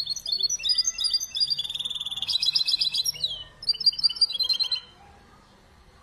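Mule canary × goldfinch hybrid singing a fast, varied song of chirps and rattling trills. The song breaks briefly about three and a half seconds in and stops just before five seconds.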